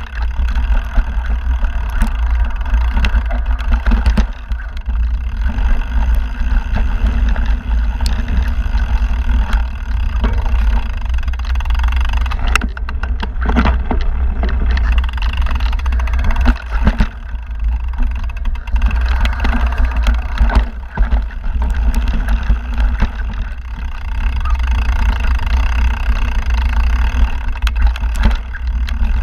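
Mountain bike rolling down rocky dirt singletrack, heard through an action camera's microphone: a steady heavy wind rumble on the microphone, with frequent knocks and rattles as the bike jolts over rocks.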